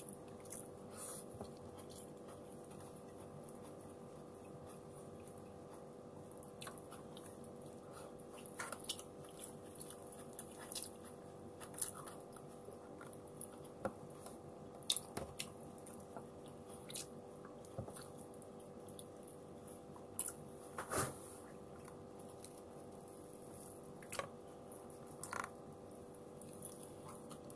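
A person eating rice and fried dried milkfish with their fingers: soft chewing and mouth smacks with scattered small clicks. Under it runs a steady faint hum.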